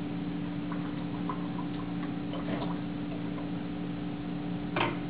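Light scattered taps and clicks from watercolor painting tools being handled, with one sharper click near the end, over a steady low hum.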